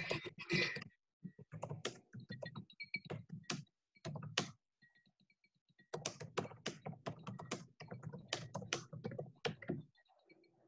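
Rapid, irregular run of clicks and taps in bursts, with a lull about five seconds in and dying away near the end.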